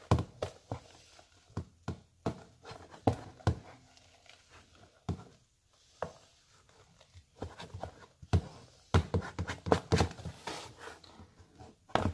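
Wooden spoon stirring thick slime in a plastic bowl: irregular knocks and scrapes of the spoon against the bowl, with a brief pause near the middle.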